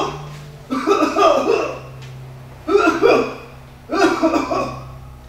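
A person's voice in three short bursts, over a steady low hum.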